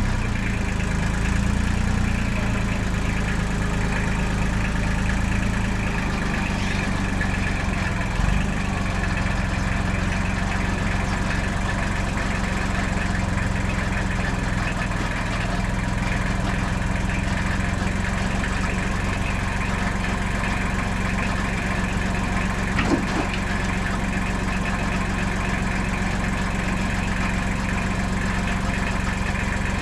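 An engine running steadily at idle, with a couple of brief knocks.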